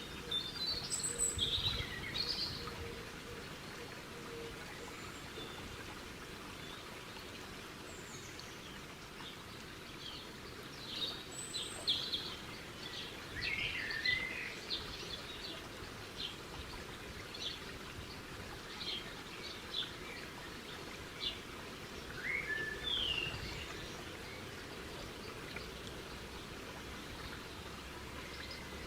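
Small birds chirping and calling in short, scattered high notes over a steady background hiss, busiest in the middle of the stretch.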